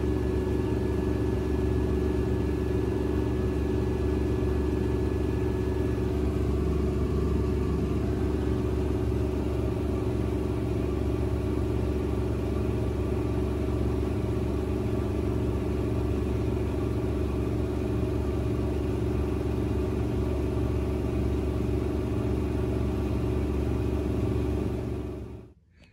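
Front-loading washing machine spinning at 1400 rpm: a steady loud hum with a thin whine above it, which fades out about a quarter of the way in. The sound cuts off suddenly near the end.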